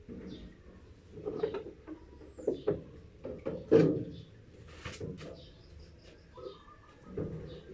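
Irregular clicks, scrapes and light knocks, with a brief squeak about two seconds in: the sounds of handling parts and tools.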